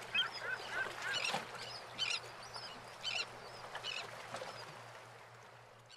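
Birds calling in quick repeated short calls over a steady rushing background, fading in and fading out again.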